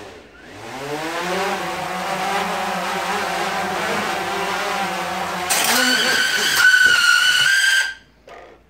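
DJI Phantom 3 Advanced quadcopter's motors and propellers spinning up and running steadily, then from about five and a half seconds in turning louder and higher-pitched as the drone flies into the Christmas tree, and cutting off abruptly near the end.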